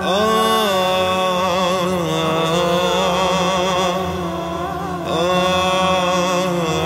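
Background music: a chant-like solo voice singing long, wavering held notes over a steady low drone, with a new phrase starting about five seconds in.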